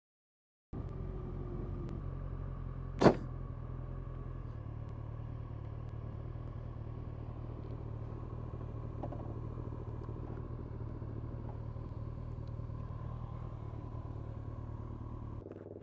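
Kawasaki ZZR1400's inline-four engine running steadily at low revs as the motorcycle rolls slowly to a stop, then switched off shortly before the end. A single sharp click about three seconds in is the loudest sound.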